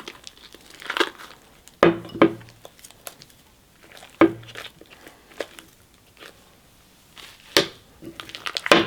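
Spoon stirring sticky glue-and-shaving-cream fluffy slime in a bowl as the borax activator is worked in: about six short sticky clicks and crackles, spread unevenly.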